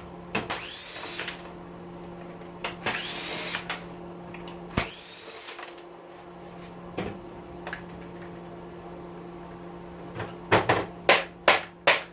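Electric drill-driver running in three short bursts, each a rising then falling whine, backing screws out of the weed whacker's plastic housing, over a steady low hum. Near the end comes a quick run of five or six loud, sharp knocks.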